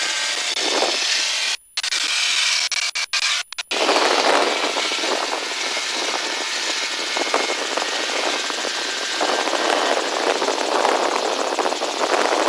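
Helicopter cabin noise picked up over the pilots' intercom through a keyed headset mic: a steady rushing noise with a thin high whine. It cuts out briefly about one and a half seconds in and again several times around three and a half seconds in, the way an intercom mic gates in and out.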